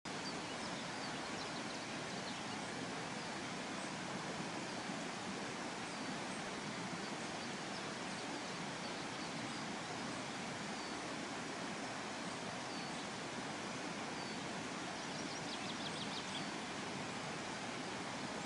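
Steady, even hiss, with faint high chirps of small songbirds scattered through it and a short rapid trill about fifteen seconds in.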